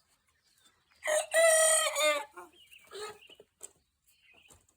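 A young rooster gives a short immature crow of about a second, the attempt of a cockerel still learning to crow, about a second in. It is followed by a few softer, short calls.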